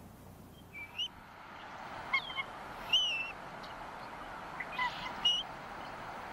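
Bald eagles calling: a few short, high chirping calls, some bending down in pitch, spread about a second apart. The loudest comes about three seconds in. A steady hiss runs underneath.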